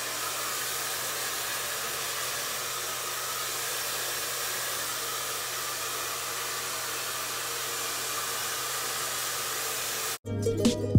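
Powertech 2200-watt hair dryer blowing steadily, a constant airy hiss. It cuts off abruptly near the end, and plucked-string music follows.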